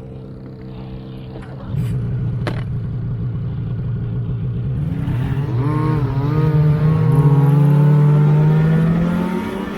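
Snowmobile engine running, getting louder about two seconds in, then revving with a wavering, rising pitch and easing off slightly near the end.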